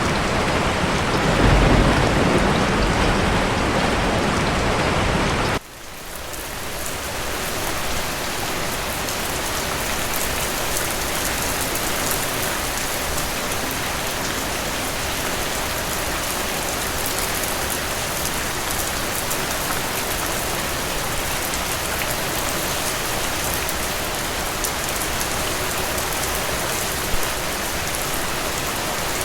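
Steady heavy rain, with a low rumble in the first few seconds. About five and a half seconds in it cuts off abruptly and gives way to a lighter, hissier rain that swells back up and holds steady.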